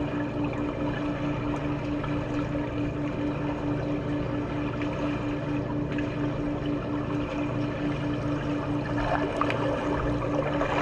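Swimming pool water noise with a steady, low pulsing hum at about five pulses a second running through it. Splashing picks up near the end.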